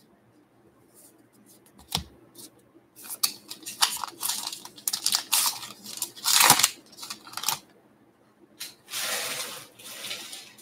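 Baseball card pack wrapper being torn open and crinkled, with irregular crackles, after one sharp click about two seconds in; a steady rustle near the end.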